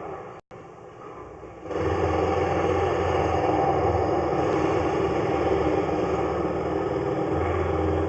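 A steady engine-like mechanical drone with a low hum, cut briefly about half a second in, quieter for a moment, then steady and louder from about two seconds in.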